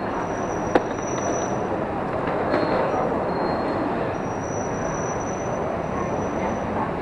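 Steady rumble of passing vehicles, with faint high-pitched squeals that come and go and a sharp click about three-quarters of a second in.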